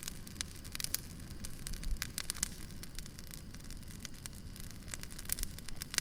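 Firewood burning with irregular sharp crackles and pops, several a second, over a low steady rumble of the fire.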